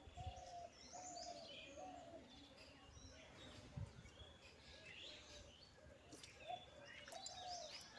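Faint birdsong: several birds chirping and whistling, with a lower call repeated every second or so throughout.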